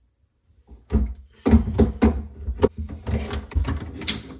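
Handling work at a laundry sink cabinet: a run of knocks, clicks and rattles that starts about a second in, as the water supply and plumbing are got at for disconnection.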